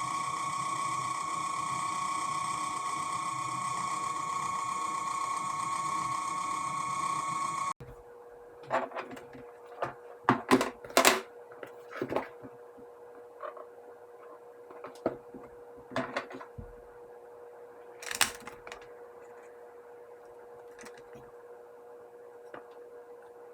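Old washroom pipe exhaust fan running noisily, a steady whirring hum with a whine, until it cuts off abruptly about eight seconds in. After that come scattered clicks and knocks over a faint steady hum.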